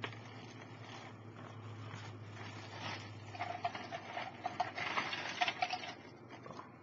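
Loose Lego pieces and their plastic bag being handled: a rustle and many light plastic clicks, busiest in the second half.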